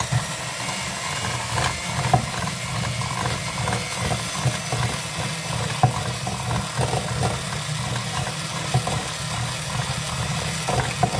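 Electric hand mixer running steadily, its twin metal beaters whipping cream cheese and mayonnaise in a glass bowl, with scattered clicks as the beaters knock against the glass.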